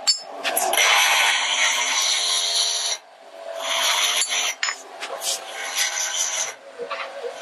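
A noisy bearing giving a rough grinding, scraping sound in long stretches, dropping away briefly about three seconds in.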